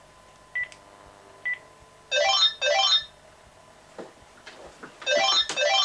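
Desk telephone ringing with the British double-ring cadence: two double rings, about three seconds apart.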